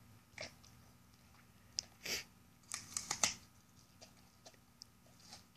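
Husky biting and chewing an apple, with a few scattered wet crunches, loudest in a cluster from about two to three seconds in.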